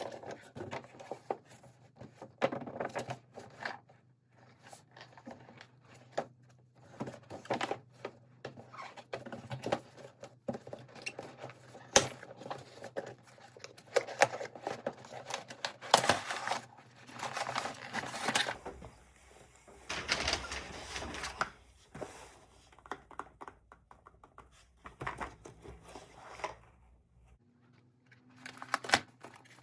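Hands unboxing a toy tractor: irregular clicks and taps with rustling and crinkling of packaging, and a longer rustle about two-thirds of the way through.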